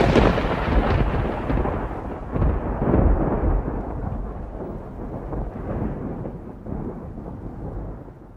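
Thunder: a loud rumble carried on from a clap just before, rolling on with a few fresh swells in the first three seconds and then slowly fading away.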